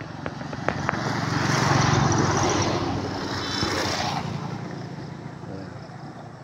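A motorcycle driving past close by with a small van behind it, the engine and road noise swelling to a peak about two seconds in and then fading away.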